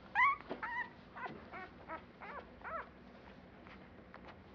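A newborn puppy whimpering: about six short, high, wavering cries in quick succession over the first three seconds.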